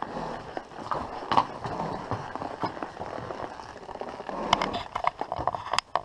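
A ridden horse's hooves clip-clopping on a rocky dirt trail, with irregular sharp strikes as hooves hit stone. The strikes are loudest about a second and a half in and in a cluster near the end.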